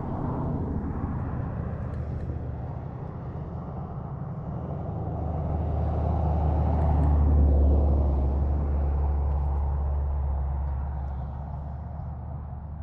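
Low rumble of a passing engine, growing louder to a peak about halfway through and then fading away.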